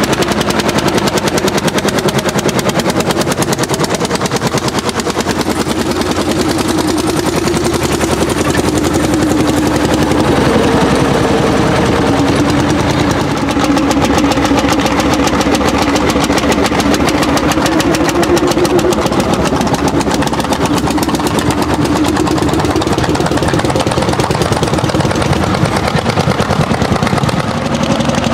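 Orsi Argo hot-bulb tractor's big single-cylinder two-stroke engine running under load while pulling a plough, a loud, steady stream of rapid, even firing beats whose pitch wavers slightly as the load changes.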